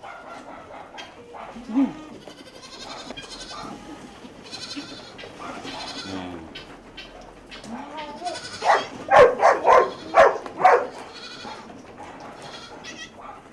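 Goats bleating, with a short call about two seconds in and a cluster of loud bleats about nine to eleven seconds in.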